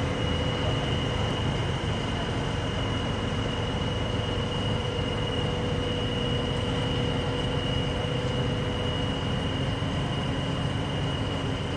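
Crane engine running steadily under load as it holds a suspended rooftop air-conditioning unit, a constant drone with a steady high-pitched whine over it.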